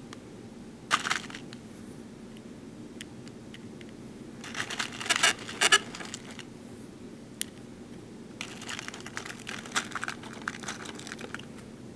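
Small BeadOs plastic beads clicking and rattling as fingers pick through a plastic compartment tray. There is a short burst of clicks about a second in, a denser clatter around the middle, and scattered light clicks near the end.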